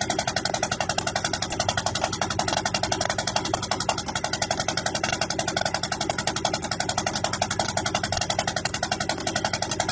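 Small fishing boat's engine running steadily with a fast, even pulsing; the engine noise is a bit loud.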